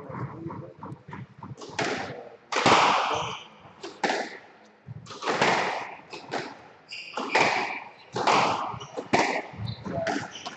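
Squash rally: the ball is struck by rackets and smacks off the court walls about once a second, each hit echoing briefly, with the players' footsteps on the wooden floor between hits.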